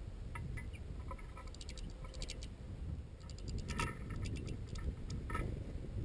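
Small birds at a metal sunflower-seed feeder: quick runs of sharp clicks and ticks, heaviest in the middle with a last burst near the end, over a low steady rumble of wind on the microphone.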